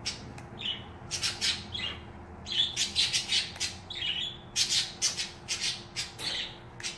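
A pet bird squawking repeatedly in the room: a quick, irregular string of short, sharp, high calls, several of them loud.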